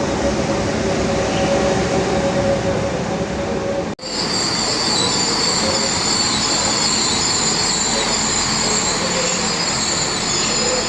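A train moving at a station platform, running noise with its wheels squealing in steady high-pitched tones. The sound drops out abruptly about four seconds in and comes straight back with a higher, shriller squeal.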